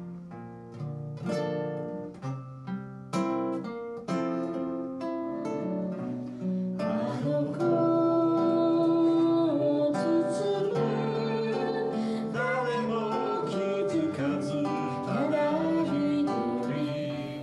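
Acoustic guitar fingerpicked, single plucked notes ringing out, then a singing voice comes in over the guitar about seven seconds in: a folk song performed live.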